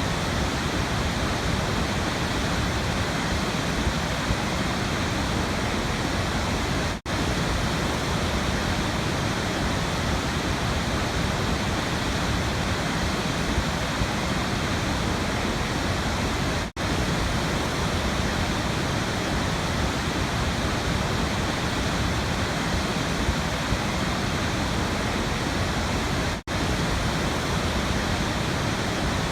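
Waterfall rushing with a steady, even roar of falling water. The sound drops out very briefly three times, about ten seconds apart.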